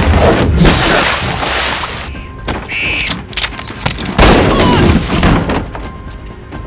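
Movie action soundtrack: heavy gunfire and booming blasts under music, thinning out about two seconds in, with scattered shots and another loud blast about four seconds in.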